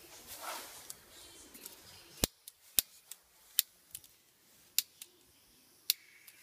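A series of sharp, separate clicks at uneven spacing, about five loud ones and a few fainter ones, from a hand tool being worked.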